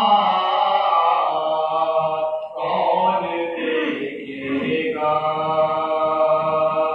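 Unaccompanied chanting of a noha, a Shia lament, in long held melodic phrases with a short break between them.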